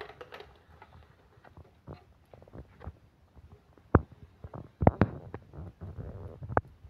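Handling noise: soft rubbing and small clicks, with sharp knocks about four seconds in, twice about five seconds in, and once more near the end.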